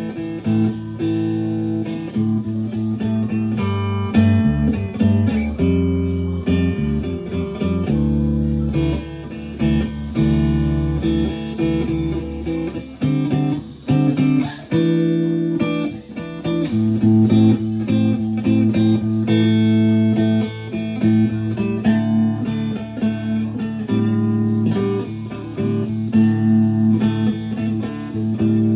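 Chambered-body Telecaster electric guitar being played, with plucked notes and ringing chords changing every second or so.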